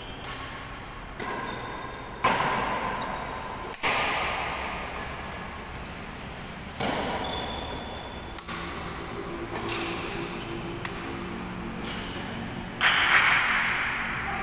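Badminton rackets striking a shuttlecock during a rally, sharp hits every one to three seconds, each ringing out in the hall's echo, the loudest about two seconds in and near the end. Short high squeaks sound in between.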